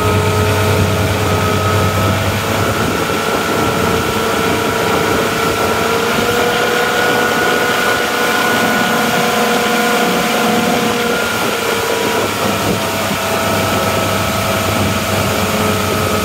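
Motorboat engine running steadily at towing speed, its note drifting slightly up about six seconds in and easing back near twelve seconds, over a constant rush of wake water and wind.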